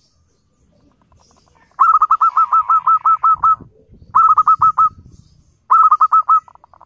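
Zebra dove (perkutut) calling: quick, staccato high coos in three runs, a long run of about a dozen notes about two seconds in, then two shorter runs of about five.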